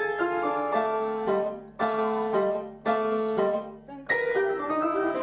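Piano being played: runs of notes and chords, each struck sharply and left to ring, in short phrases, with a fuller chord about four seconds in.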